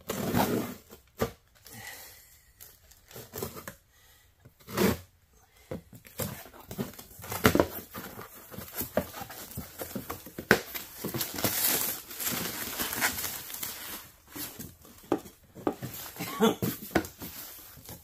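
Cardboard boxes, paper wrapping and a plastic bag being handled as a box is unpacked: irregular crinkling and rustling with scattered sharp clicks.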